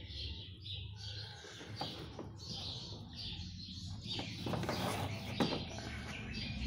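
Birds chirping in the background, with a few light clicks about four to five seconds in. The switched-on amplified speaker itself gives out no sound, which is its fault.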